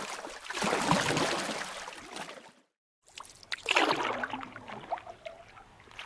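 Sound effect of water splashing and lapping around a small boat on the water, fading and cutting off about two and a half seconds in. After a half-second gap, a second stretch of lapping, splashing water begins.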